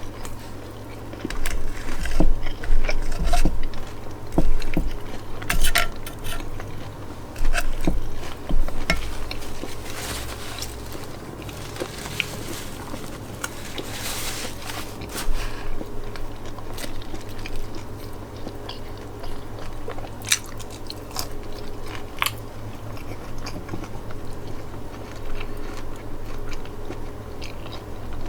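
A person chewing and biting food close to the microphone, with wet mouth sounds and sharp crunchy clicks scattered through. The chewing is busier in the first half.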